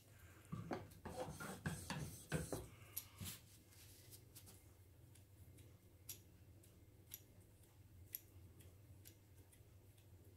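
Faint rubbing and scraping strokes for the first few seconds, then a few light clicks: a chisel's freshly honed edge, held in a metal honing guide, being stropped by hand against the skin to take off the last of the burr.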